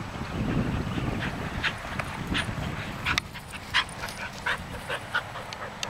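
Rottweiler panting, a quick even run of breaths about three a second that starts about a second in, over a low rumble in the first couple of seconds.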